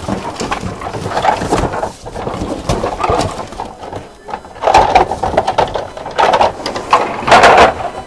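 Gutter fittings knocking and scraping together as they are rummaged through by hand, an irregular clatter with louder scraping bursts about five seconds in and near the end.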